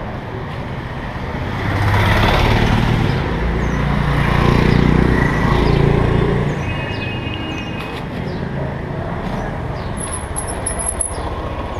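Street traffic noise: a motor vehicle's engine passes close, growing louder about two seconds in and fading after about six seconds, over a steady street hum. A brief high squeak comes near the end.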